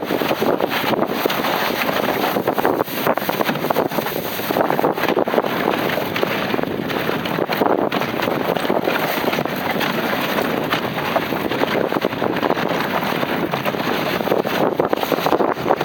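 Wind buffeting the microphone of a camera riding on a moving dogsled: a loud, steady rushing with irregular gusty surges.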